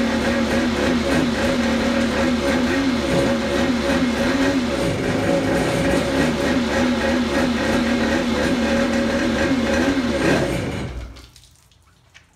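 1987 Kawasaki X2's two-stroke twin running out of the water on a garden-hose flush, its pitch wavering up and down a little, then shut off about eleven seconds in. A faint trickle of cooling water follows.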